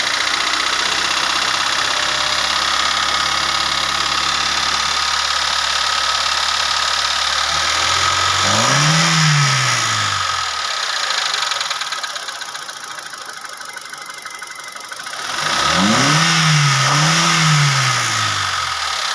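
Hyundai Reina's four-cylinder engine idling with a tick inside it, revved once about eight seconds in and blipped twice in quick succession near the end. The owner likens the ticking to an engine starved of oil, though he thinks it is still not very loud.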